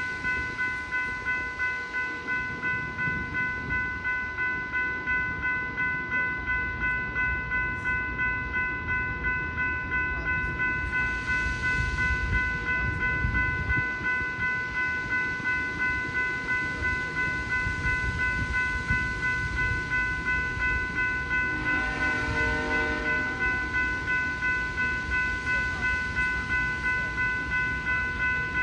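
Railroad crossing bell ringing at a rapid, even rate, over the low rumble of a train. About three-quarters of the way through, a short horn-like chord sounds briefly.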